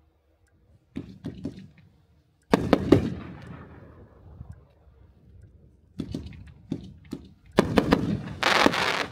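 An 18-shot, 500-gram consumer firework cake firing: sharp launch reports and aerial shell bursts come in clusters. The loudest group is about two and a half seconds in, and a denser run of bursts comes near the end.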